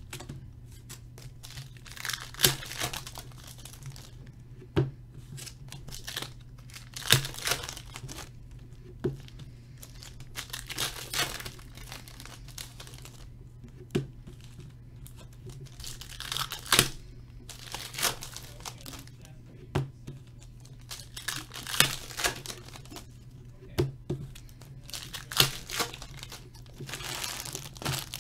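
Trading card pack wrappers being torn open one after another, a rip every few seconds, with crinkling of the wrappers and short sharp clicks between the tears.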